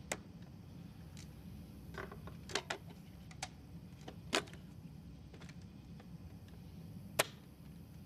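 Plastic clicks and creaks of a vertical CD player's flip-up lid being opened and a disc handled in it: a scattering of short sharp clicks over a faint low hum, the sharpest one about seven seconds in.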